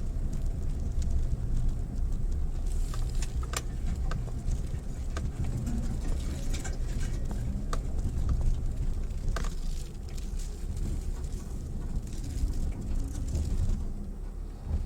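Mitsubishi Pajero Mini driving slowly over rough ground: a steady low rumble of engine and tyres, with many scattered sharp clicks and knocks of stones under the tyres. The rumble drops off near the end.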